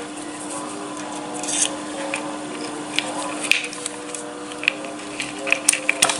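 Small metal clicks and scrapes as a coil hammer spring and its stainless-steel 304 cap are pushed back into a CNC-machined chamber housing and the cap is screwed in by hand. The clicks come more often in the second half, over a steady low hum.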